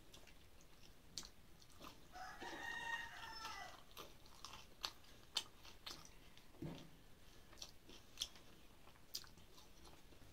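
A rooster crows once about two seconds in, a single arching call lasting about a second and a half. Throughout, sharp clicks and smacks of chewing and eating with the fingers.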